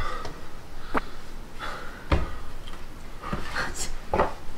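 A person breathing hard in short puffs from the burn of spicy chicken feet, with about four sharp knocks on the table roughly a second apart.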